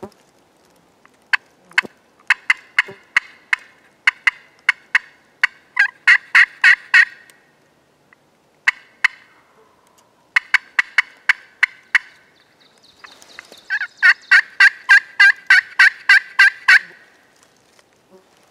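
A turkey pot call worked with a striker, making series of hen yelps: a run that quickens from about a second in, a short pair near nine seconds, another run, then a long, loud run near the end. A distant gobbler answers faintly about ten seconds in.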